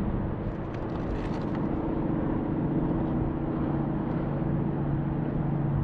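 Steady drone of a distant engine, a low hum of several held tones over a rushing outdoor background, with a few faint light ticks about a second in.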